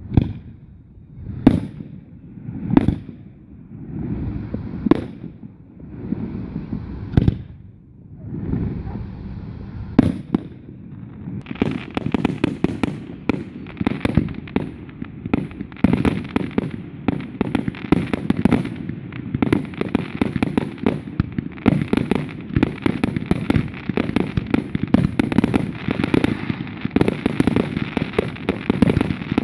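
Aerial fireworks shells bursting: single booms with rumbling tails every second or two, then from about eleven seconds in a dense, continuous barrage of rapid bangs and crackling.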